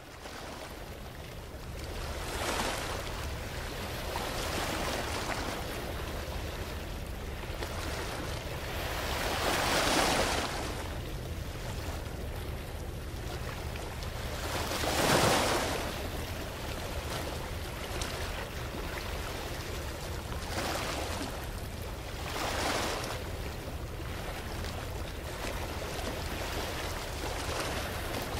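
Ambient electronic soundscape of noise swells, like surf or wind, that rise and fall every few seconds over a steady low hum; the strongest swells come about a third of the way in and halfway through.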